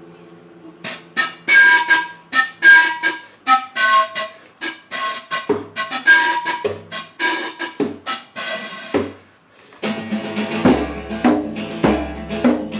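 Instrumental music: a quick melody of short picked notes, then, about ten seconds in, fuller strummed guitar chords over a bass line.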